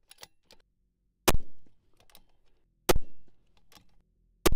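Scoped rifle firing three shots about a second and a half apart, part of a four-shot group fired to check the zero before the final scope adjustment.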